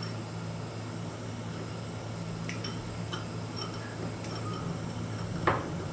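Cooking oil heating in a wok, faintly fizzing as small bubbles rise, over a steady low hum. There are a few light clinks in the middle.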